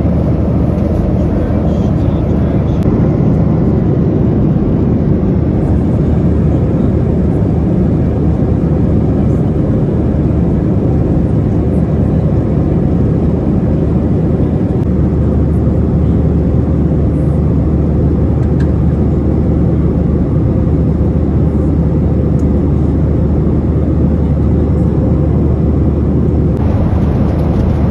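Boeing 737-800 cabin noise in flight: a loud, even rush of airflow over the fuselage with the low drone of its CFM56 engines, the drone stepping up a little about halfway through.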